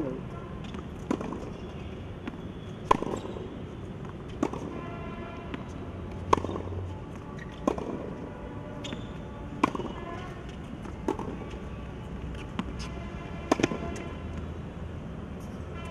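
Tennis rally: a racket strikes the ball with sharp pocks, roughly one every one to one and a half seconds, and the ball bounces on the hard court between hits. The loudest hits come about three and six seconds in.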